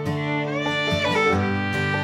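Background instrumental music: a fiddle playing over plucked strings, with notes sliding in pitch near the middle.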